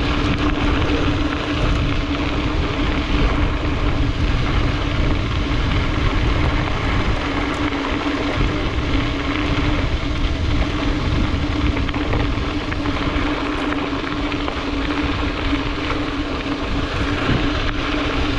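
Wind rushing over the microphone and tyre noise from a mountain bike being ridden fast, with a steady hum throughout.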